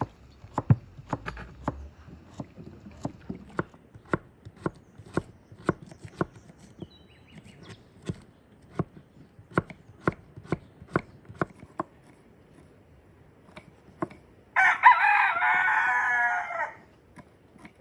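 Kitchen knives chopping pumpkin and onion on wooden log-slice boards, sharp strokes about two a second. Near the end a rooster crows once, about two seconds long, louder than the chopping.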